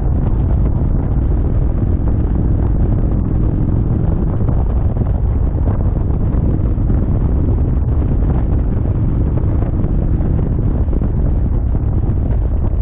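Wind buffeting the microphone on a moving Indian Chieftain motorcycle, a steady heavy rush, with the engine running evenly underneath.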